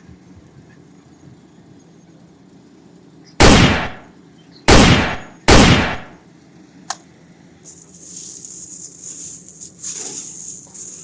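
Three loud gunshot bangs, the second and third close together, each ringing out for about half a second. Then a single sharp click, followed by a few seconds of uneven hissing.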